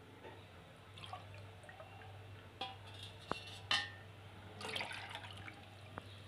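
Milk being scooped with a cup from a steel bowl and poured into a pan of boiling chai: faint splashing and pouring, with a few sharp clinks of the cup against the metal vessels.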